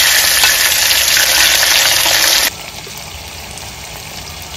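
Pinto beans frying in hot lard in a skillet, a loud steady sizzle while a wooden spoon stirs them; about halfway through the sizzle suddenly drops to a much quieter steady bubbling.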